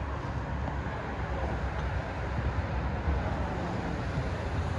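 Steady low rumble of a vehicle in motion.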